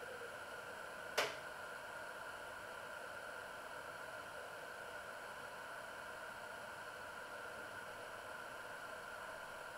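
Steady faint hiss with a single sharp click about a second in, from an electric cooktop with an empty steel pan heating on it.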